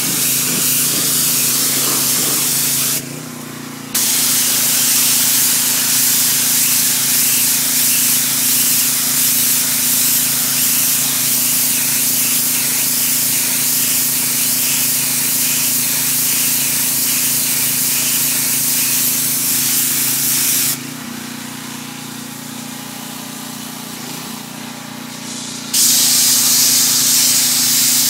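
Pressure washer spraying: a loud steady hiss of the water jet over the steady hum of the machine's motor. The spray cuts out for about a second near three seconds in, and again for about five seconds past the twenty-second mark, while the motor keeps running.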